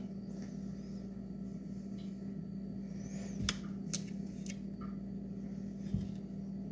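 A few sharp taps of a knife against a cutting board as a block of cheese is sliced, over a steady low hum.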